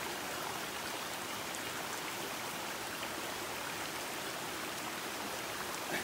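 Small forest stream running steadily over rocks, an even rushing of water.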